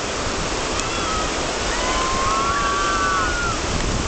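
Steady rush of whitewater rapids pouring over rock. Faint drawn-out calls rise over it from about halfway through.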